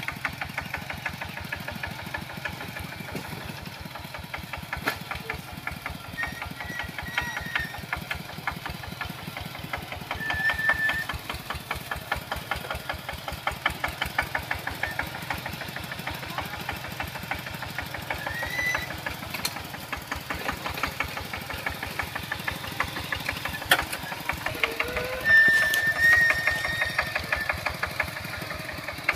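Kubota two-wheel walking tractor's single-cylinder diesel engine running steadily with a fast, even knocking chug while the tractor is steered through grass on cage wheels.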